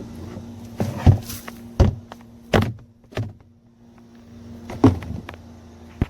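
A series of sharp knocks and thunks, about seven, over a steady mechanical hum. The hum drops out for a moment past the middle and comes back, then all sound cuts off at the end.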